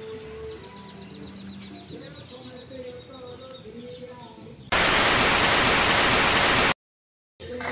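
Faint background music, then about two-thirds of the way through a loud burst of TV-static hiss, an editing transition effect, which lasts about two seconds and cuts off suddenly into a moment of dead silence.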